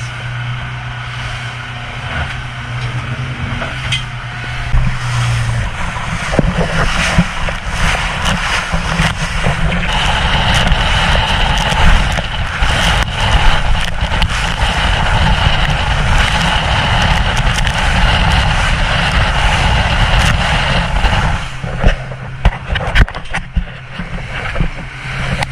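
A 115 hp Yamaha outboard drones steadily at cruising speed inside the boat's cabin for the first several seconds. Then comes a loud rush of water and wind along the side of the semi-displacement hull as it runs through rough seas throwing spray. Near the end there are a few sharp knocks and the engine drone returns.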